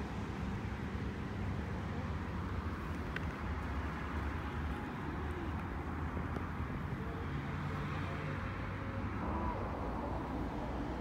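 Steady low outdoor background rumble, like distant traffic or wind on the microphone, at an even level throughout.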